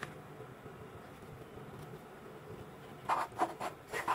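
A thin wooden board rubbing and scraping on a tabletop as it is shifted by hand, with a few short scrapes near the end after a faint, quiet stretch.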